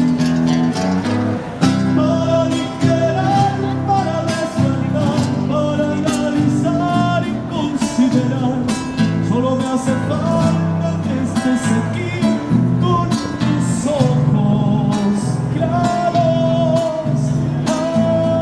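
Instrumental opening of a Latin American ballad: a guitar strummed in a steady rhythm under sustained chords, with a held melody line above it.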